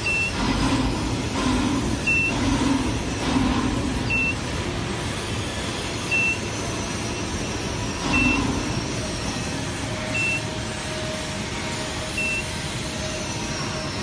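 Steady industrial workshop noise with a short, high electronic beep repeating about every two seconds.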